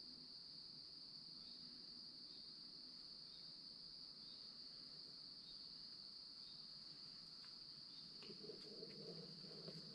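A steady, high-pitched drone of insects singing in summer woods, with a soft low rustle near the end.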